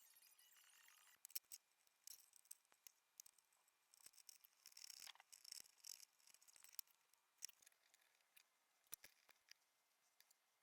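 Faint, scattered clicks and light taps of small plastic and metal RC crawler parts and tools being handled during assembly, with a denser run of rattling clicks about four to six seconds in.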